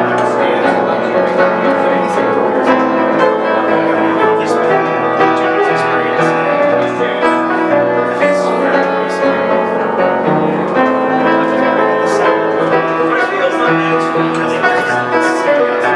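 Solo piano playing an instrumental passage between sung verses, with held, overlapping notes at a steady level.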